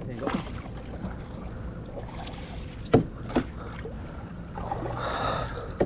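Two sharp knocks aboard a small fishing boat, a little under half a second apart about three seconds in, over a low steady hum.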